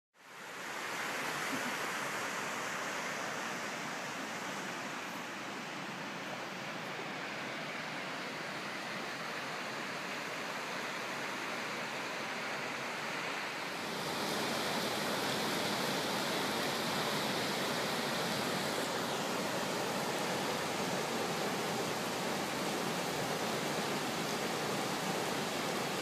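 Steady rushing of Punch Bowl Falls on Eagle Creek pouring into its pool. It fades in at the start and gets a little louder about halfway through.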